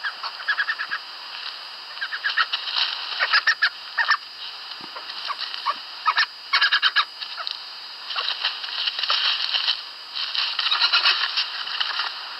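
Badger calls: rapid, irregular chattering and squeaking chirps in bunched bursts over a steady background hiss.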